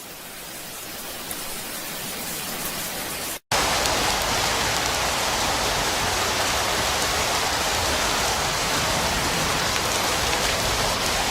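Heavy rain hissing, fading up over the first few seconds; after an abrupt cut about three and a half seconds in, a louder, steady downpour.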